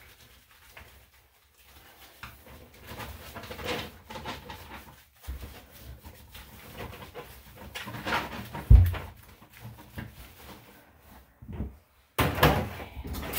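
A soapy, wet Yorkshire terrier being scrubbed by hand in a bathtub: rubbing of wet fur, scuffs of the small dog moving in the tub, and one sharp thump. About a second before the end, a hand-held shower sprayer starts running.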